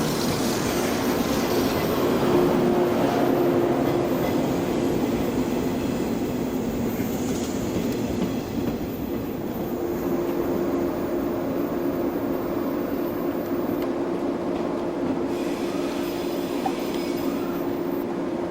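A train running on the track: a steady rumble with a held low tone.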